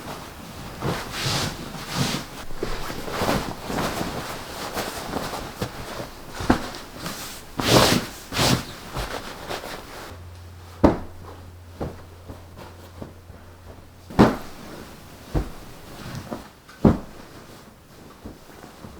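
Bedding being handled while a bed is made: sheets and a duvet rustling and flapping in quick, dense bursts. Partway through this gives way to a quieter stretch with a few separate thumps.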